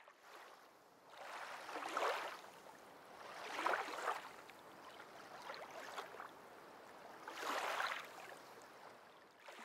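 Small lake waves lapping and sloshing at the water's surface, close to the microphone, in three soft swells about two, four and eight seconds in.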